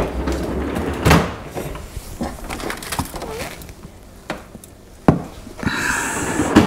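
Kitchen handling noises as a frozen pie is taken out of the freezer: a string of separate knocks and clatters, with a longer rustle near the end.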